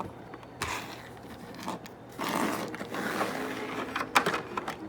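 Handling noise from toys being moved: a few light knocks, with a stretch of scraping or rustling about two seconds in.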